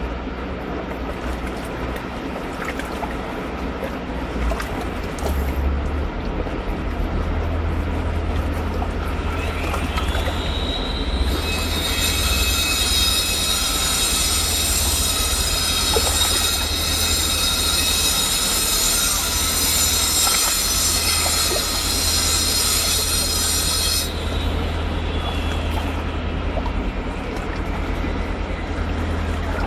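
Fast river water rushing steadily over stones. About a third of the way in, a shrill squeal with many tones rises in and holds for about fourteen seconds, then cuts off suddenly.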